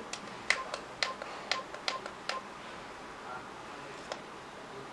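Buttons on a LIELONGREN dual alarm clock being pressed in quick succession, about nine clicks in two seconds, several with a short electronic beep, then one more press about four seconds in.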